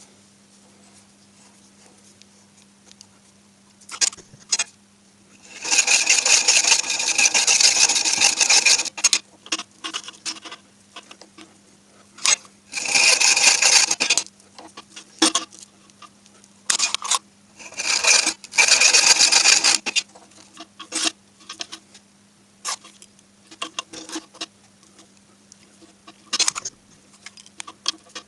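Heavy copper welding earth cable being cut back past its burnt, stiffened section to more flexible cable: three long rasping stretches of cutting, the first about four seconds and the others about two seconds each, with short clicks and scrapes of handling between.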